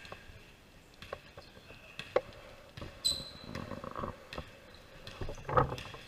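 Basketball being dribbled on a hardwood gym floor, sharp bounces about once a second, with sneakers squeaking on the court; one short high squeak about three seconds in.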